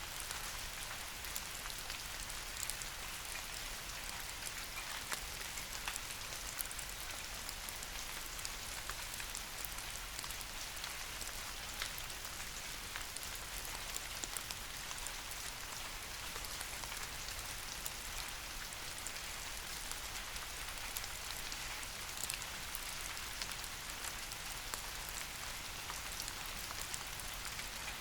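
Steady rain falling on leafy trees: a continuous soft patter of drops striking leaves, with scattered individual drips standing out.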